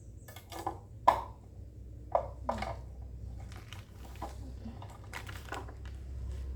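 Irregular clicks and knocks of parts being handled and fitted while setting up a new overlock sewing machine, over a steady low hum.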